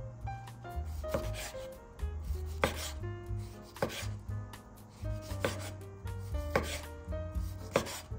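Chef's knife slicing a ripe tomato into wedges on a wooden cutting board: the blade cuts through the soft flesh and knocks sharply against the board about once every second or so, six times in all. Soft background music plays underneath.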